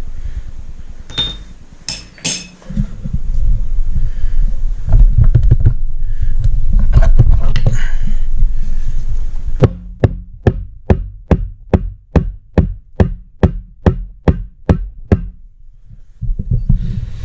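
Low rumbling and clattering for about the first ten seconds, then a rubber mallet knocking about three times a second for some five seconds on a stubborn crankshaft pulley of an LS 5.3 V8.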